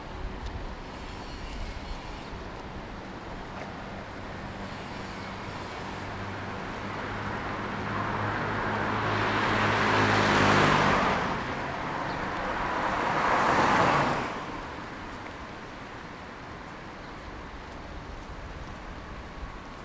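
A car and then a motorcycle passing one after the other on wet asphalt, tyres hissing over a steady background of distant traffic. The first pass builds slowly to its loudest about ten seconds in, with a low engine hum under it, and the second, shorter one peaks about three seconds later.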